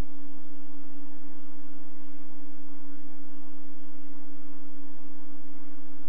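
A steady pure tone held at one pitch, with no rise or fall.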